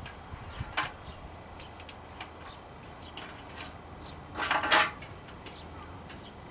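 Light clicks and scrapes of a steel coat-hanger hook and cable being worked under a motorcycle's fuel tank, with one louder scrape lasting about half a second a little past the middle.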